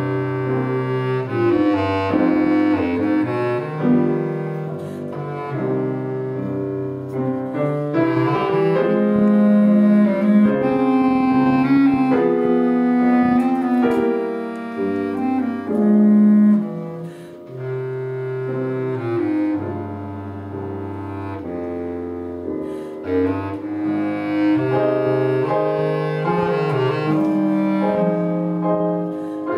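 Bass clarinet playing a melody of long held notes, accompanied by a grand piano.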